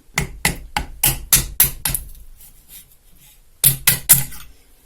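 Quick, sharp hammer taps on a workpiece, knocking a stuck part loose: about eight taps in the first two seconds, a pause, then three more near the end.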